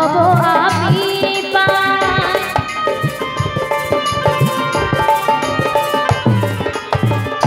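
Live Bengali Baul song. A woman's voice sings a last line in the first second, then an instrumental interlude follows: an electronic keyboard holds a sustained melody over a rope-tuned wooden barrel drum (dhol) beating a steady rhythm.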